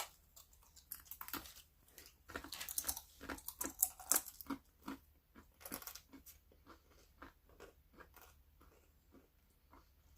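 A person chewing thin, dry sweet corn crisps close to the microphone: a run of irregular crunches, thick at first and thinning out toward the end.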